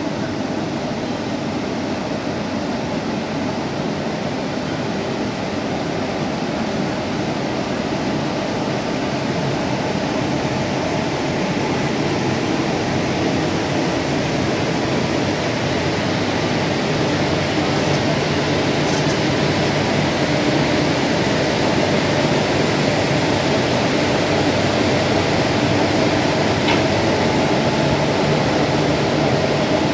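WAP-4 electric locomotive standing with its cooling blowers running: a steady fan-like whir with a low hum, growing gradually louder. A couple of faint clicks are heard in the second half.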